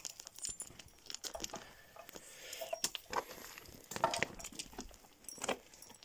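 Metal dog chain clinking and rattling in short, irregular jingles as a chained dog moves about.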